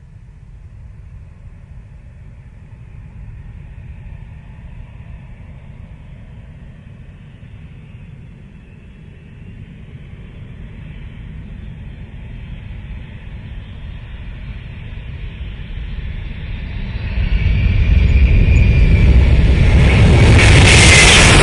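Military fighter jet approaching, its low engine rumble growing steadily louder, jumping sharply about three-quarters of the way through and peaking in a sudden loud, hissing blast near the end as it passes.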